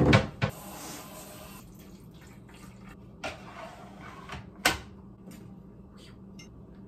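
Kitchen cupboard door knocking open, then short spells of water running and a sharp click about two-thirds through, over a low steady hum.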